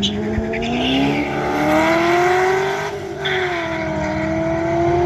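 Holden Commodore hill-climb car accelerating hard away from the start line, its engine note climbing steadily. About three seconds in the revs dip briefly, then build again as it pulls up the hill.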